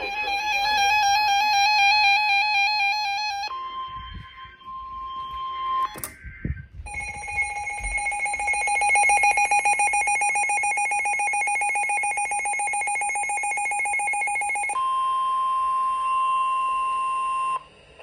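NOAA Weather Radio alert tones announcing a new warning. A warbling electronic alarm is followed by a steady tone near 1 kHz, the weather radio warning tone, then a rapidly pulsing alarm tone, and the steady tone again near the end.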